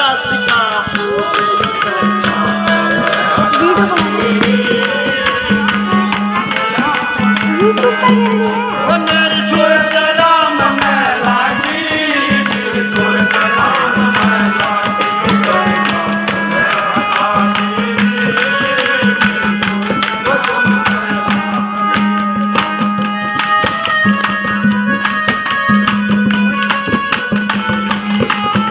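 Folk bhajan music: a melody bends over a low note that pulses on and off, with tambourine-like jingling percussion throughout.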